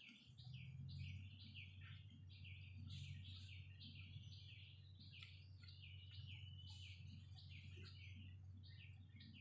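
Small birds chirping steadily in the background, a quick run of short, high, downward-sliding chirps several times a second with a brief steady whistled note about two-thirds through, all faint over a low hum.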